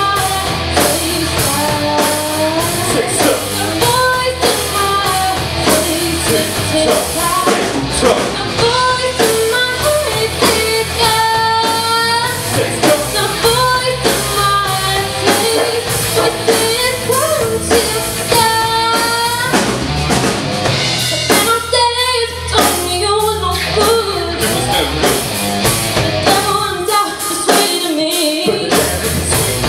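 Live rock band playing loudly: a drum kit keeps a steady beat under guitars, with a long, wavering melody line held over the top, mostly without words.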